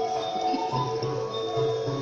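Background music: steady held tones over a low, regularly repeating beat.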